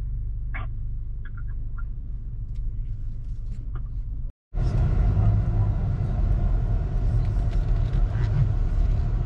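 A car's low steady rumble heard from inside the cabin while it sits at idle. After a brief dropout about four seconds in, a louder, fuller rumble follows as the car drives on the road.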